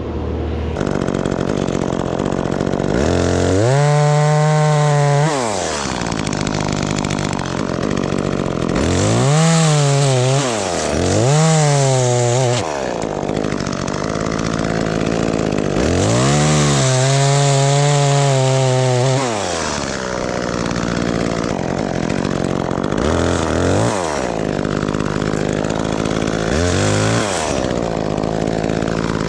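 Two-stroke chainsaw revving to full throttle in repeated bursts of a few seconds, cutting wood, with four long bursts and two shorter ones near the end. It drops back to a lower run between cuts, over a steady engine drone underneath.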